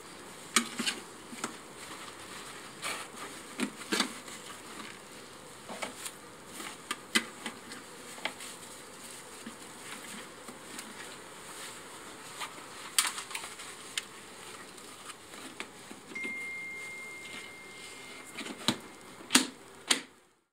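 Scattered clicks and knocks of tins and tools being packed into a hard plastic carrying case, with the lid latches snapping shut near the end, over a steady hum of honeybees around the hives.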